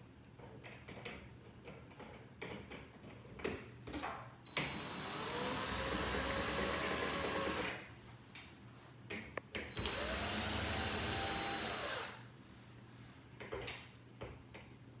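Power drill driving screws to secure an in-ceiling speaker's mounting plate: two runs, one of about three seconds and a shorter one of about two, each speeding up and then slowing down. Small knocks and handling clicks come between the runs.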